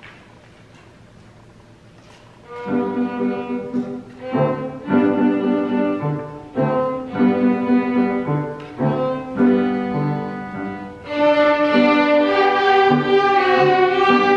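A group of children's violins playing a tune together, starting about two and a half seconds in after a hush. The tune goes in short phrases with brief breaks between them, and grows fuller from about eleven seconds in.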